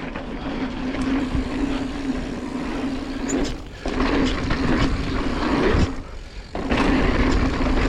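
Mountain bike rolling down a dirt trail: tyre and riding noise with a steady buzz that drops out briefly twice.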